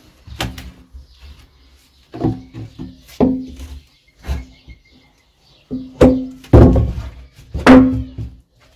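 Hammer blows on wooden deck boards: a string of irregular knocks, each with a short ringing tone, the three loudest in the second half, as a board is knocked loose.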